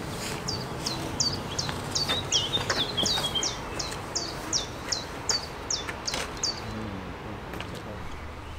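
A songbird singing a run of about fourteen repeated high notes, each slurring downward, about two a second, with some lower twittering among them near the middle.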